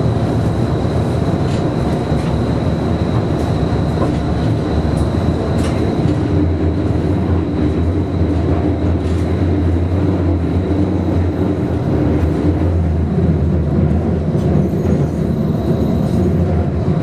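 Low-floor electric streetcar heard from inside the cabin while running: a steady rumble of wheels on rail and motor hum, with a thin constant high whine and a few faint clicks. The low hum grows stronger for several seconds midway.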